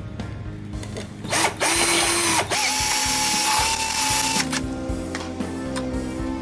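Black & Decker cordless drill boring a pilot hole into a wooden roof board, with a short burst and then a steady run of about three seconds.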